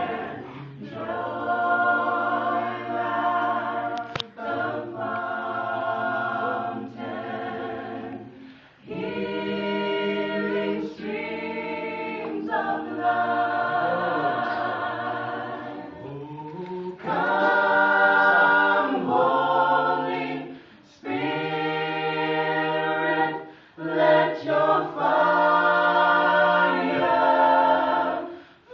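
Small mixed vocal group of men and women singing a gospel song a cappella in close harmony: held chords sung in phrases, with short breaks between them.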